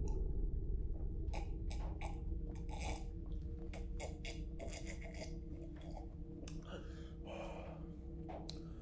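A man gulping water from a glass, a run of short irregular swallows and breaths over a low steady drone.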